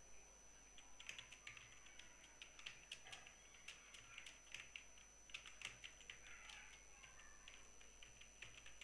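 Faint typing on a computer keyboard: an irregular run of quick key clicks starting about a second in, as a line of text is typed.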